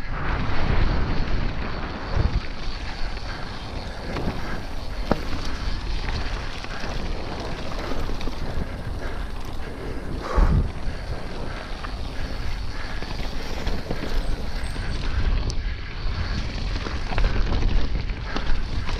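Wind buffeting the microphone of a bike-mounted action camera over the rumble and rattle of a Yeti SB150 full-suspension mountain bike descending a dry dirt trail. There are a few sharp knocks from bumps, the loudest about ten seconds in.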